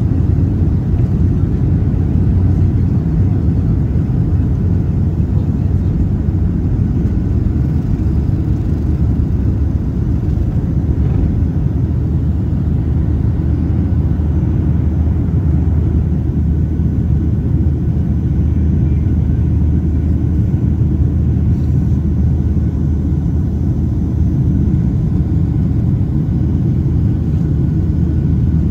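Boeing 737-900's CFM56-7B jet engines at takeoff thrust, heard inside the cabin over the wing during takeoff and initial climb: a loud, steady low rumble.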